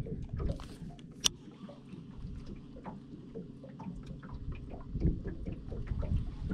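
Low, steady hum around a small fishing boat on a lake, with light scattered ticks, one sharp click a little over a second in and a brief low rumble near the end.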